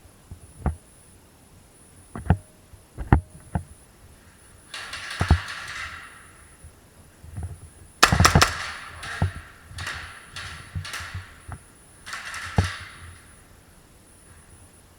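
A scattering of sharp knocks and clicks, with three short bursts of rustling noise about five, eight and twelve seconds in, the middle one the loudest.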